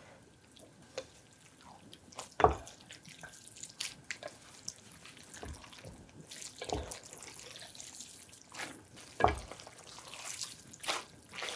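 Wooden chopsticks mixing thick black bean sauce into a big plate of jjajangmyeon noodles: sticky, wet squelching with scattered clicks, two of them louder, about two and a half seconds in and near nine seconds.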